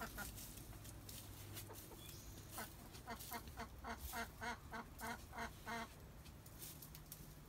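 Domestic hens clucking: a quick run of about a dozen short clucks starting about two and a half seconds in and stopping near six seconds, from hens waiting at an occupied nest box.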